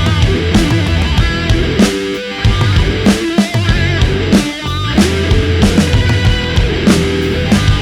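Background rock music with drums and guitar at a steady beat.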